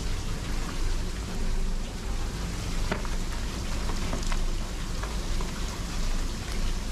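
Stream water rushing over rocks, a steady hiss with a few sharp clicks and splashes.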